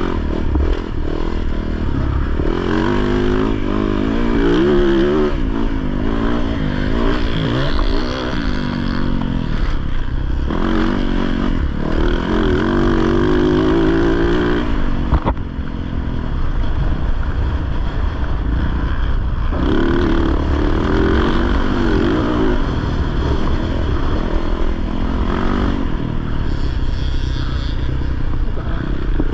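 Off-road racing motorcycle engine heard from on the bike, revs climbing and falling back over and over as the throttle is worked, with a few brief drops when the rider shuts off.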